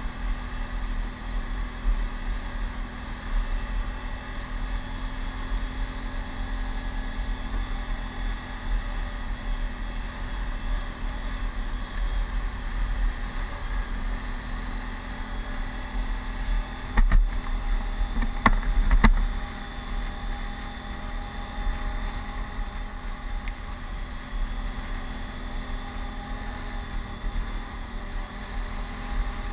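Can-Am Outlander ATV engine running at a steady cruising speed on a gravel road, with a low rumble on the microphone. A few sharp knocks come a little over halfway through.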